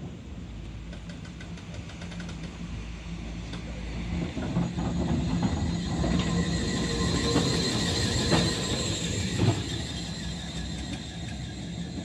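Historic 1928 MAN electric tramcar rolling slowly past, growing louder as it comes close about two-thirds of the way in and then fading as it moves off. A steady low hum runs under a series of clicks and knocks from the wheels on the track, with a faint high squeal while it is closest.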